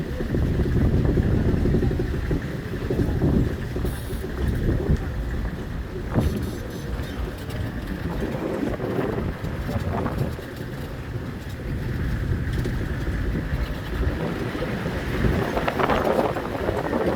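Wind buffeting the microphone outdoors: a loud, uneven low rumble that swells and drops.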